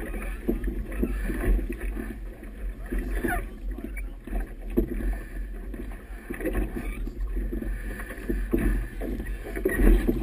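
Boat moving through choppy river water: a gusty low rumble of wind on the camera's microphone, with irregular splashes of water against the hull.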